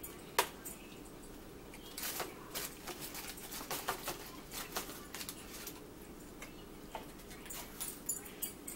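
Eating sounds at a table: scattered small clicks and crackles of chewing and handling food. There is one sharp click at the start, a cluster of crackles from about two seconds in, and more near the end.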